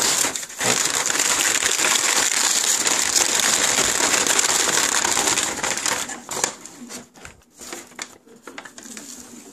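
White packing paper crinkling and rustling as a hand digs through it in a cardboard box. The crinkling is loud and continuous for about six seconds, then thins to fainter scattered rustles.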